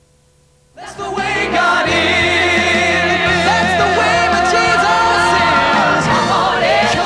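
Gospel music starts suddenly less than a second in: a choir singing over a band, loud and steady from then on.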